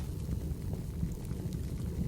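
Wood fire burning in a fireplace: a steady low rumble of the flames with a few faint, scattered crackles.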